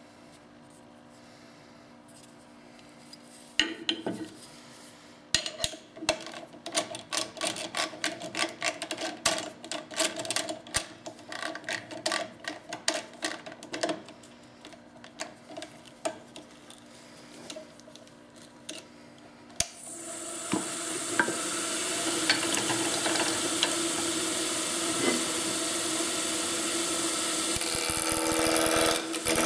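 A square elm blank being clamped in a metal four-jaw lathe chuck: a long run of clicks and metallic knocks as the jaws are tightened. About twenty seconds in, the woodturning lathe starts and runs with a steady hum. Near the end it gets louder as a turning tool meets the spinning square blank.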